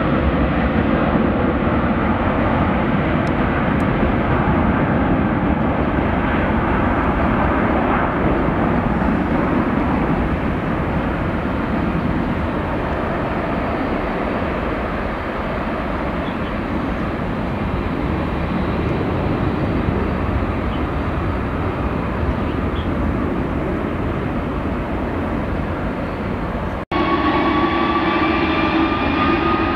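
Airbus A330 twin-engine jet airliner at takeoff thrust: a steady, loud jet roar that eases slightly as the aircraft climbs away. Near the end, after an abrupt break, another A330's engines run at takeoff power with a rising whine over the roar.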